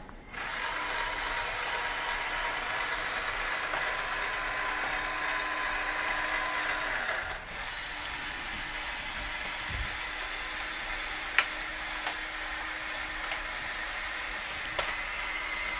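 LEGO Technic Power Functions XL motor whirring steadily through its gear train as it slews the model telehandler's crane superstructure round on the chassis. It stops briefly about seven seconds in, then runs on a little quieter, with a few faint clicks from the gearing.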